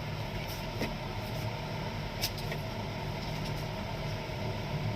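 A steady low hum with a few faint, sharp clicks, about one second in and again a little after two seconds.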